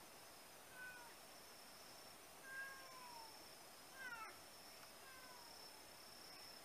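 Faint cat meows, about four short calls falling in pitch, the loudest about four seconds in, over a steady high-pitched insect drone.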